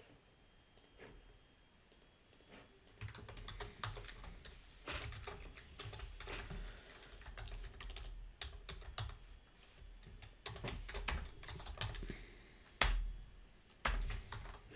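Typing on a computer keyboard: irregular key clicks starting about three seconds in, with two louder clicks near the end.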